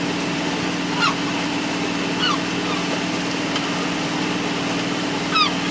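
Gulls calling in three short squawks over a steady low engine hum.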